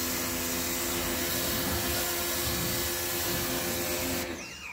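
Pressure washer running, its water jet spraying onto a car's side panels with a loud, steady hiss over the pump motor's hum. It cuts off suddenly about four seconds in.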